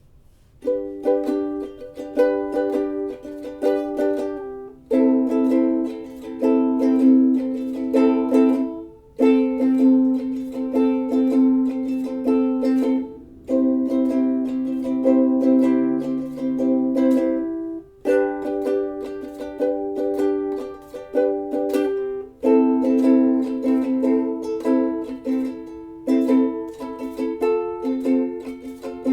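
Ukulele playing a melody, the strings plucked in phrases of a few seconds each with short breaks between them.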